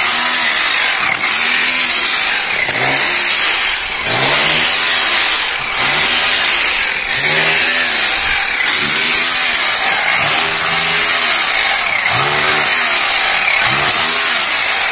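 Corded electric rotary hammer chiseling out the concrete of a drainage gutter: a loud continuous hammering rattle, its motor whine rising and falling again and again as the bit bites and eases.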